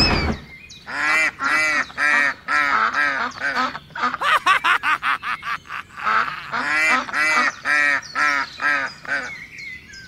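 Geese honking: a run of short honks, about two a second, with a quicker flurry of calls in the middle.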